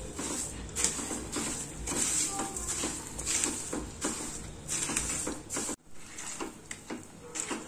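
Spatula stirring granulated sugar into cooked vermicelli in a nonstick kadai: repeated scraping strokes against the pan at an uneven pace. It cuts out abruptly just before six seconds in, then goes on quieter.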